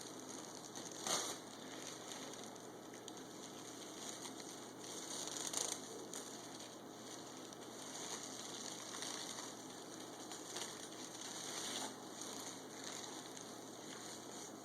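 Thin plastic grocery bag crinkling and rustling faintly as a freshly sharpened knife slices through it, with three sharper crackles along the way.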